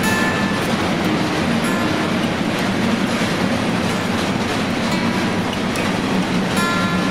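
Freight train of empty double-deck car-carrier wagons rolling past close by: a steady rumble and rattle of wheels on the rails, with a few brief high squeals from the wheels.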